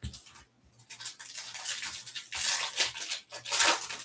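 Foil trading-card pack wrapper crinkling as a Topps Stadium Club Chrome pack is pulled from the box and torn open, in uneven surges that are loudest in the second half.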